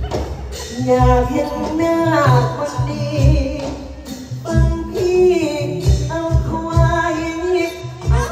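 Likay (Thai folk theatre) song: a voice singing a melody into a microphone over band accompaniment with a steady low drum beat, heard through a stage sound system.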